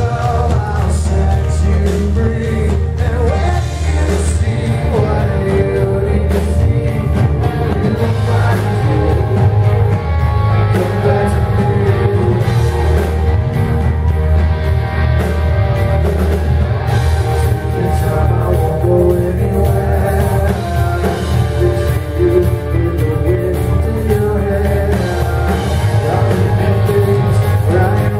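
Live rock band playing a song: electric guitars and drums with a male lead singer, heard loud from the audience.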